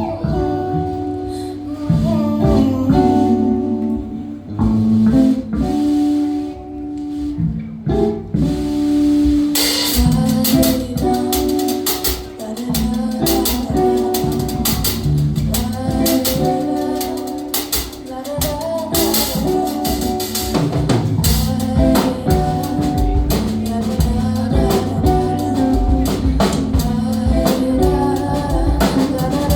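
A song with singing over instruments. About ten seconds in, a drum kit comes in and the music gets fuller and busier.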